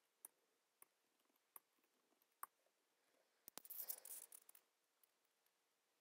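Faint computer keyboard typing: a few separate keystrokes, then a quick run of keystrokes about three and a half seconds in.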